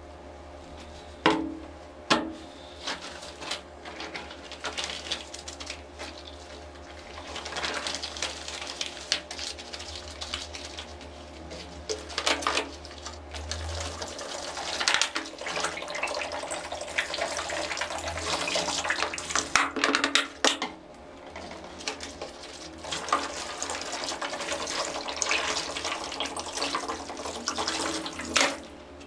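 Water poured from a large plastic bottle into a plastic basin onto a T-shirt, splashing in long pours with a break about two-thirds of the way through. A couple of sharp knocks near the start.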